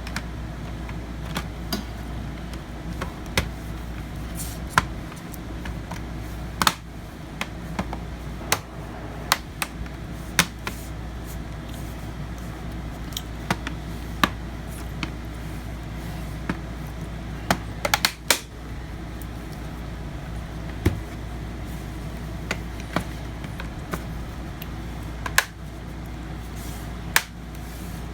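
Irregular sharp clicks and taps of a laptop's plastic case parts being handled and fitted during reassembly, over a steady low hum.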